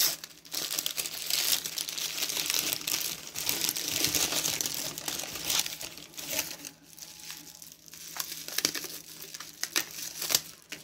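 Plastic wrapping crinkling and tearing as it is pulled off a small glass hand pipe, dense and continuous for the first six seconds or so, then in sparser separate crackles.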